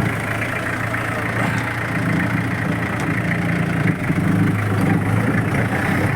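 Jeep engine running steadily with a low, even hum.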